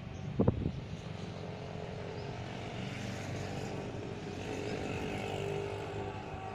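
Steady distant engine rumble that swells slightly toward the middle and eases near the end, with a brief bump about half a second in.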